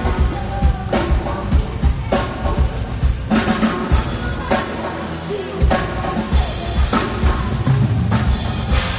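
Live pop band playing amplified on stage during a soundcheck, a drum kit beating steadily with kick and snare over a heavy low end. The low end thins briefly a little past the middle, then the full beat returns.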